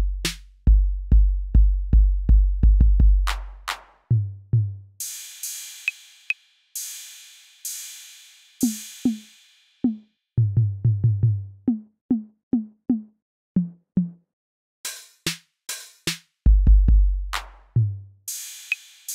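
Electronic drum machine beat from GarageBand's Classic Drum Machine kit. Long, deep booming kicks give way to short pitched tom hits and hissing cymbal crashes, with sharp clicks over the top, and the pattern changes every few seconds.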